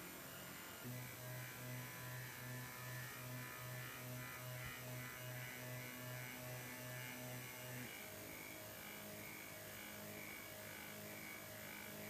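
Stepper motor running under control of a BH1750 light sensor, its speed following the light on the sensor. It gives a humming tone that pulses about twice a second, and about eight seconds in the pulsing stops and it changes to a steadier, higher hum.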